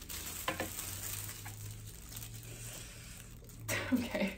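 Soft handling of a plastic-wrapped LED grow-light bar laid across a glass shelf, with one sharp tap about half a second in. A short voiced murmur near the end.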